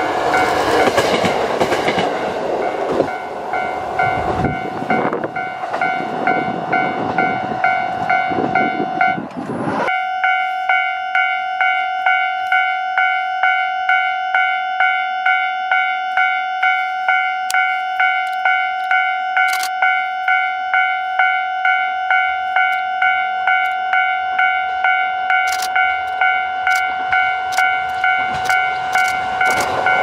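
A KiHa 40 diesel railcar passes close by, with engine rumble and wheel noise on the rails. Ten seconds in this drops away, and a second KiHa 40 comes in from a distance, growing louder near the end. Throughout there is a steady ringing tone that pulses about one and a half times a second.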